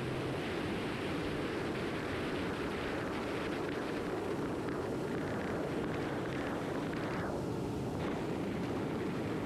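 Steady rumble of a motorboat under way: the motor running evenly, with the rush of water and wind. The upper hiss briefly drops out about seven seconds in.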